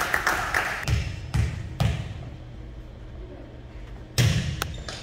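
Volleyball thuds echoing in a gym: three quick ones about a second in, then a louder single one a little after four seconds.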